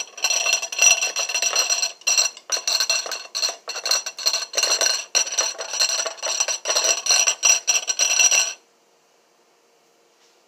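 Metal hand-mixer beater stirring liquid and clinking rapidly against the sides of a glass mixing bowl, the glass ringing with each strike. The clinking stops abruptly near the end.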